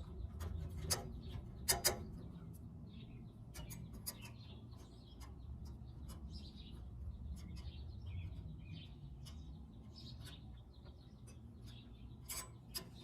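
Sharp clicks and small knocks of hand work, loudest about a second and two seconds in and near the end, as the TXV sensing bulb is strapped to the suction line. Birds chirp throughout, over a steady low hum.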